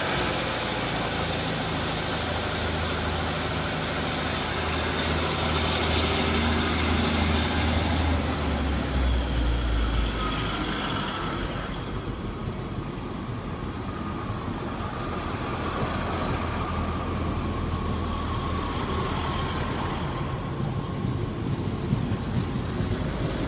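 Class 156 Super Sprinter diesel multiple unit, six cars long, running past along the platform: the underfloor diesel engines hum and the wheels run on the rails. The sound is loudest in the first ten seconds or so, then gets quieter.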